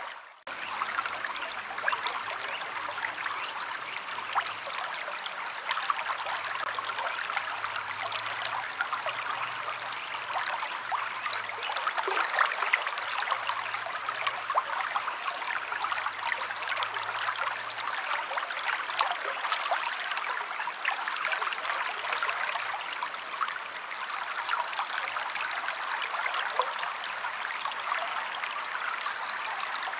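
River water flowing over stones, a steady rushing with constant fine trickling and splashing. It cuts out briefly at the very start.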